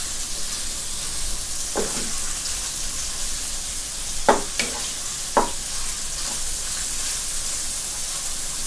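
Pieces of fatty pork neck sizzling in oil in a non-stick wok over low-to-medium heat, a steady hiss. A wooden spatula stirs them, scraping and knocking against the pan a few times.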